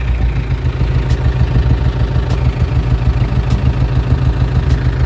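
Truck engine running steadily at low revs under light throttle while the clutch is eased out to start the truck reversing.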